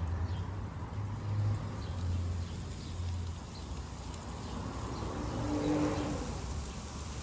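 Outdoor street ambience: a steady low rumble of traffic with a few faint, short chirps above it.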